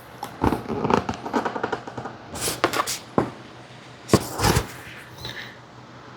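Hands working a plastic welding helmet and a clip-on light bracket: a run of quick clicks and rustles, then a couple of sharper knocks about four seconds in.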